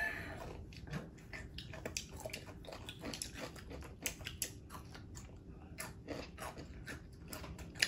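Mouth chewing and crunching on pickle spears: a scatter of small, irregular crunches.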